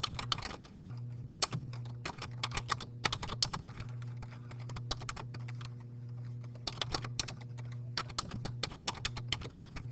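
Computer keyboard typing: irregular runs of quick key clicks as a file name is typed in, over a steady low hum.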